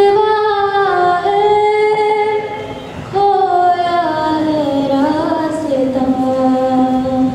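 A solo female voice singing slow, long-held notes with no audible accompaniment. There is a short break about three seconds in, and the melody settles lower near the end.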